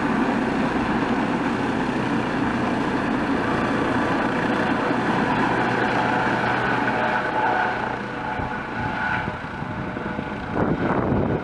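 Eurocopter EC155 B1 twin-turbine helicopter flying overhead, a steady turbine and rotor noise that drops and wavers from about eight seconds in as it climbs away.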